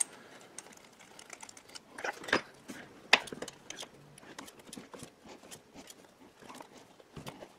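Sparse light clicks and taps of a spark-plug socket and extension being worked by hand against the engine, with two sharper clicks a couple of seconds in.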